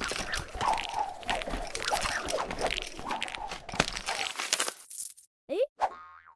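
Crunching and crackling, full of small clicks, for about five seconds; then a short rising cartoon 'boing' sound effect near the end.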